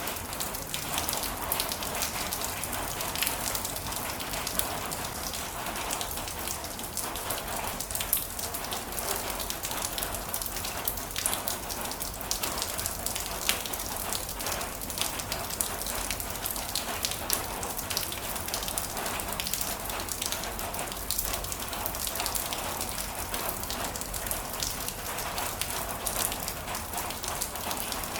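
Heavy rain falling steadily, a constant hiss with many sharp individual drop impacts.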